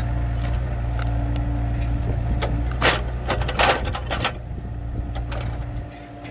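Mini excavator's diesel engine running steadily under load while the bucket digs out a tree stump, with a few loud, sharp cracking and scraping noises about three to four seconds in. The engine drops off a little before the end.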